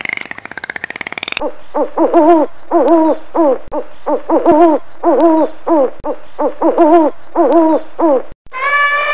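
Owl hooting: a series of short hoots, often in quick pairs. It is preceded about a second and a half earlier by the rapid clicking and wavering whistles of dolphins, and near the end an elephant begins trumpeting.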